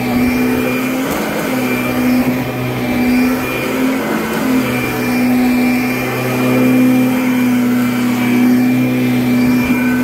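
Kirby Avalir upright vacuum cleaner running on carpet: a loud, steady motor hum with a faint high whine, dipping briefly now and then as it is pushed along.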